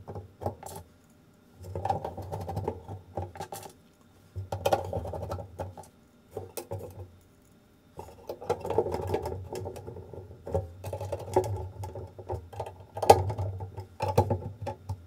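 Screwdriver driving screws through a motherboard into the standoffs of a steel PC case: several spells of turning a second or more long, with clicks and scrapes of metal, broken by short pauses as each screw is picked up and set.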